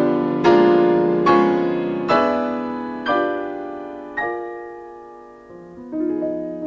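Solo piano playing a slow series of full chords, each struck and left to ring, spaced further and further apart as the playing slows, with softer single notes near the end.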